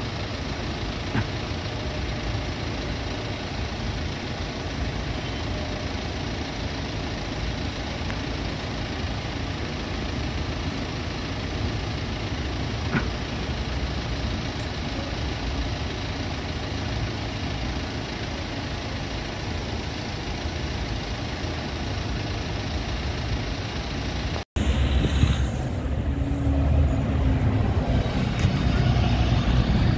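Steady city street traffic, with a van and cars idling while a V3A tram goes by. After a sudden cut about three-quarters of the way through, an Otokar Kent 12 m city bus drives past close by, louder and deeper.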